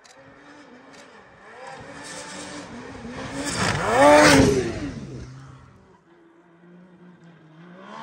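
Snowmobile coming up the trail at speed, its engine growing louder and climbing in pitch to a peak as it flies past airborne off a jump about four seconds in, then dropping in pitch and fading. A fainter steady snowmobile engine follows near the end.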